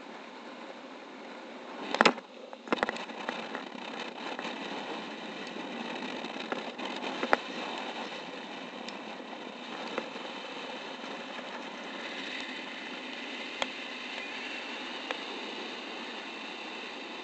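Steady rush of airflow over the camera microphone during paraglider flight, with a few sharp knocks on the camera or harness. The loudest knock comes about two seconds in and is followed by a short cluster of smaller ones.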